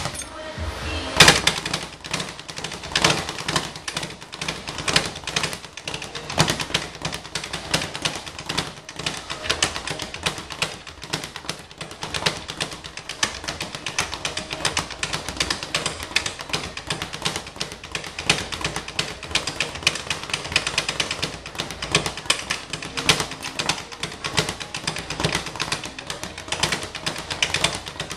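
Speed bag being punched, rebounding off its platform in a fast, continuous rattle of strikes, with one louder hit about a second in.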